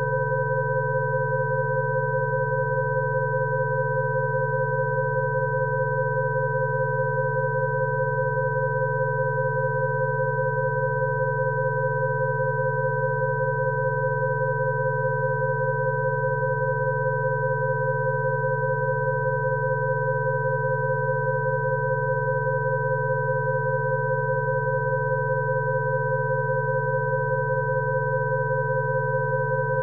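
Electronically generated Rife frequency tones: several pure steady pitches sounding together, a low hum under a cluster of mid pitches and two higher whistles, held unchanged with no breaks.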